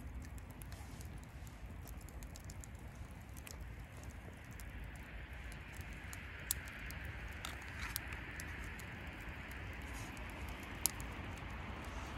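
Wood fire crackling in a metal fire pit: a faint steady hiss with scattered small pops, a few sharper ones in the second half.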